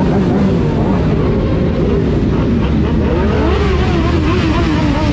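Many motorcycle engines, mostly sport bikes, idling and revving together in a dense, steady rumble, with pitches rising and falling as riders blip their throttles.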